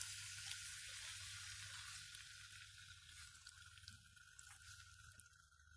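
Chopped fresh tomatoes and garlic sizzling in hot oil in a nonstick frying pan, a faint hiss that fades away over the last few seconds.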